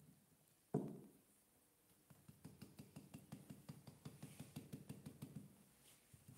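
A single knock, then rapid soft dabbing of a damp sponge on a painted terracotta pot, about seven taps a second for some three seconds. The sponge is blurring and lifting fresh paint from a stamped pattern.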